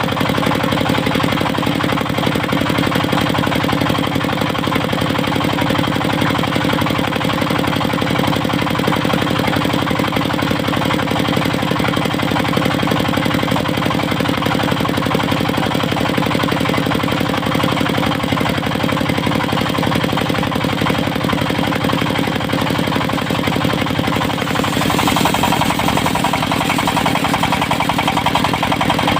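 Engine of a portable circular sawmill running steadily under power. Near the end the sound turns harsher, with more hiss.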